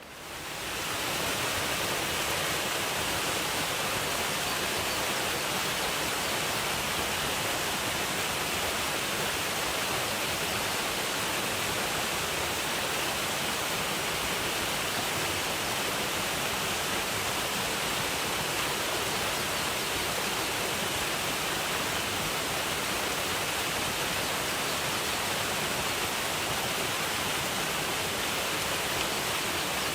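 Waterfall: a steady rush of falling water, fading in over the first second and then constant.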